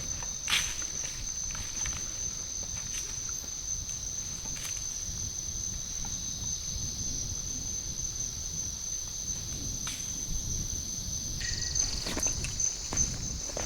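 Forest insects keep up one steady, high-pitched buzz, with a few scattered snaps or clicks. Near the end a second, pulsing insect call joins in.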